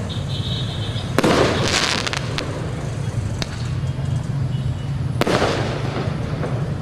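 Fireworks going off: a loud burst about a second in trailing into a second or so of crackling, and another burst about five seconds in, over a steady low rumble.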